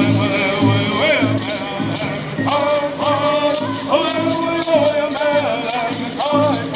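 Cahuilla-style bird song: a group of voices singing together in unison over the steady, rhythmic shaking of gourd rattles.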